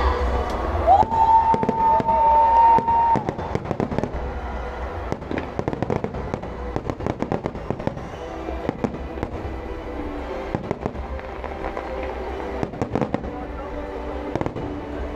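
Aerial fireworks shells bursting and crackling, many sharp bangs in quick succession over a low rumble, with music playing underneath. A high held tone sounds for about two seconds near the start.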